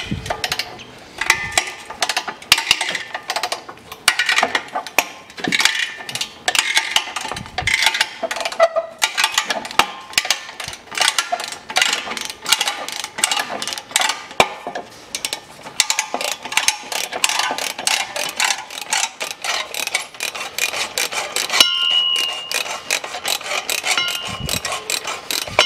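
Ratchet wrench clicking in rapid runs as a six-point socket on a long extension turns the rusted exhaust downpipe flange bolts loose.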